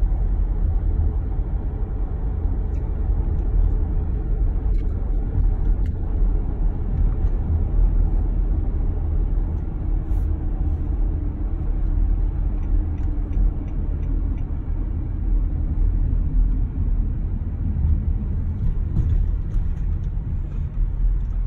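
Steady low rumble of a car's road and engine noise heard from inside the cabin while driving.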